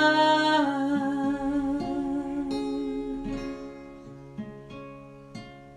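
Music from a Spanish-language worship song between sung lines: a held sung note ends, then a few plucked notes ring out one after another and the music grows quieter.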